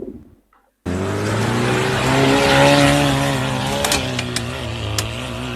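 After a moment of silence, an off-road vehicle's engine comes in running under load, its pitch rising and falling a little. A few sharp knocks sound about four to five seconds in.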